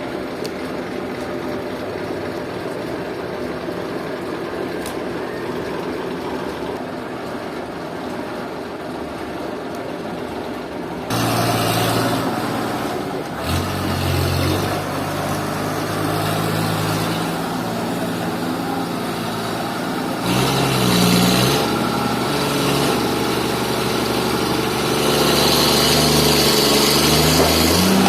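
Sawmill machinery engine running steadily, then suddenly louder about eleven seconds in. After that its pitch steps up and down, and a hiss grows toward the end.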